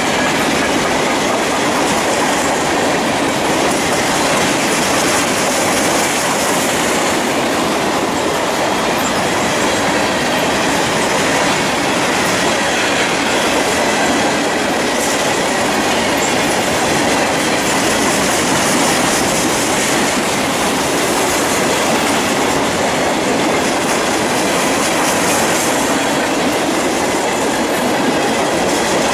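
Freight train of covered hopper cars rolling past at close range: a steady, even noise of steel wheels running on the rails.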